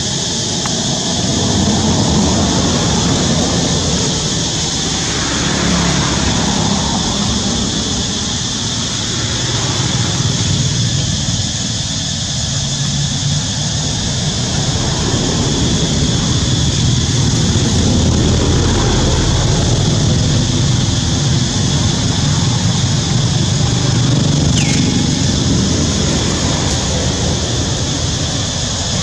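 Steady outdoor ambience: a continuous high, even insect drone over a fluctuating low rumble, with one short falling squeak near the end.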